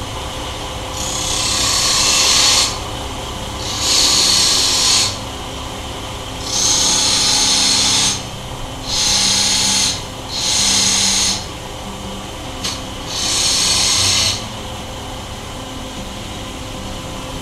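Wood lathe running with a steady hum while a small chisel is pressed into the spinning wood six times. Each cut is a hiss of about a second or so, rounding over the edge of the workpiece.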